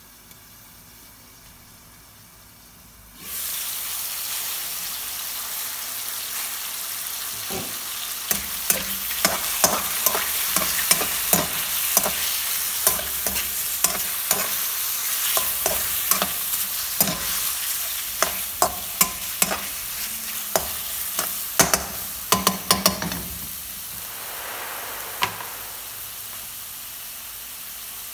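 Chicken pieces frying in a metal pan: a faint hiss under a glass lid, then a sudden loud sizzle about three seconds in as the pan is uncovered. A metal spatula then stirs the chicken, scraping and clicking against the pan many times, and the sizzle carries on more steadily near the end.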